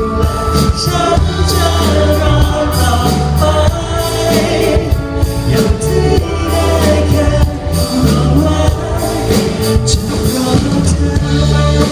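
Live rock band music with a male lead singer, heard from the audience at a large concert: steady bass and drums under the vocal.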